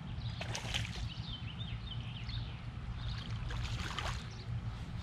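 A hooked fish splashing and thrashing at the pond's surface as it is pulled in by hand toward the bank, in two spells: about half a second in and again around four seconds in.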